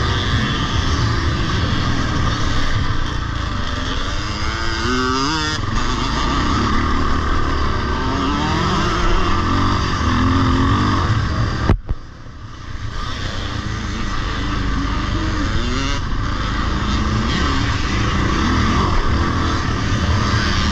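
Vintage motocross bike engine recorded from on board, revving hard with rising pitch as it pulls through the gears, over heavy low rumble. Just before the middle the throttle is chopped and the sound drops suddenly, then the engine picks back up.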